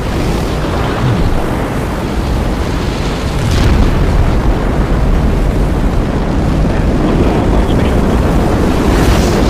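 Rocket engines firing at launch: a loud, steady, deep rumble that grows a little louder about three and a half seconds in.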